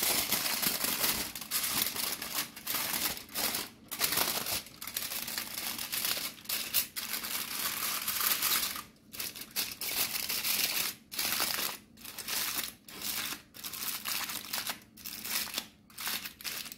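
Aluminium foil crinkling and crumpling as hands fold and press it around a whole fish to wrap it. It comes in irregular bursts with short pauses, the pauses more frequent in the second half.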